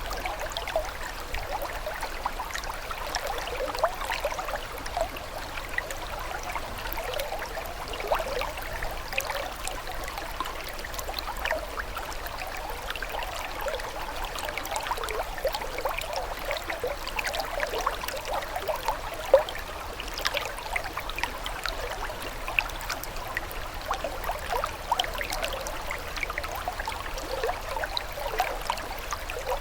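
Running water trickling and babbling steadily, full of small splashes and gurgles, with one slightly louder splash a little past halfway.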